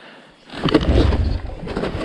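Snowmobile rumbling and rattling on a handlebar-mounted action camera, dropping low for a moment and then coming back loud about half a second in.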